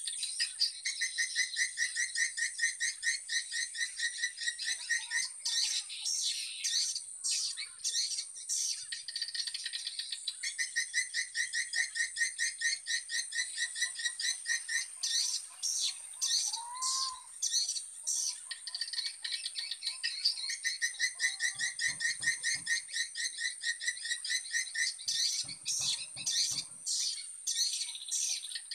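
Swiftlet call sound from a swiftlet house's lure speakers: rapid, dry rattling chirp trills in long repeating runs over a steady high tone, pausing briefly every few seconds.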